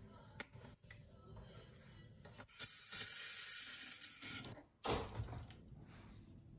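Airbrush spraying in one hissing burst of about two seconds, with light clicks before it and a knock just after it stops.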